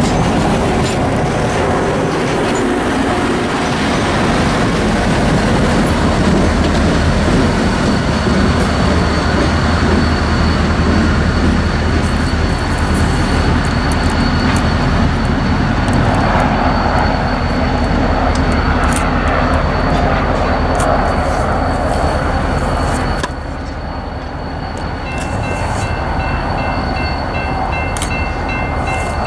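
A diesel-hauled passenger train rolling past with a steady rumble of wheels on the rails and a low engine hum. The rumble drops suddenly about three quarters of the way through, leaving a grade-crossing bell ringing in an even repeating pattern.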